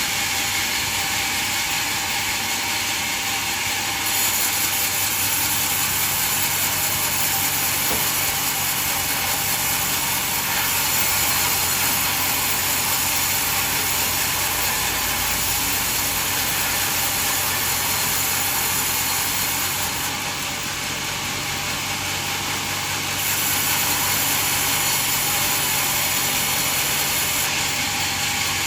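Band sawmill running steadily, a continuous mechanical noise with a high, steady whine. It gets louder about four seconds in and eases off for a few seconds around twenty seconds in before picking up again.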